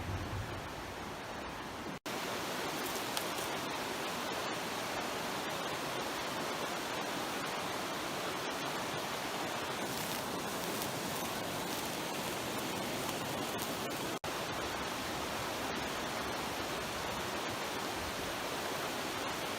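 Steady rushing of a creek's flowing water, broken by two brief dropouts, about two seconds in and again near fourteen seconds.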